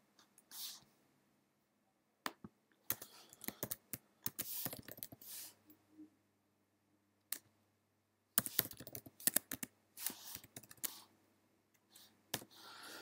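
Computer keyboard typing in two bursts of keystrokes, with a pause of a few seconds between them and single isolated key clicks in the quieter stretches.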